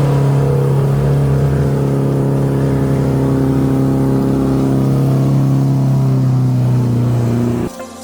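Off-road vehicle's engine held at high, steady revs, a loud droning note that cuts off abruptly near the end.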